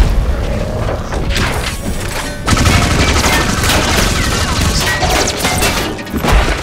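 Sound effects of giant robots fighting: heavy metallic crashes and booms, with a sudden loud hit about two and a half seconds in, over music.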